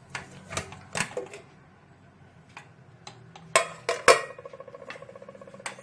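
Metal clicks and clanks of an aluminium pressure cooker lid being twisted free and lifted off the pot, the loudest knock about four seconds in, over a steady low hum. A buzzing tone is heard for the last second or so.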